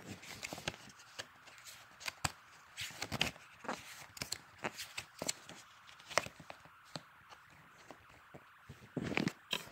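Paper inserts and a plastic DVD case being handled: irregular rustling and sharp clicks, with a louder flurry near the end.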